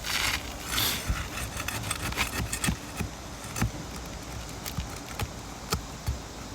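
Handling and footfall sounds on an asphalt shingle roof while shingle tabs are lifted and checked for popped nails: two short rasping scrapes at the start, then irregular knocks and taps.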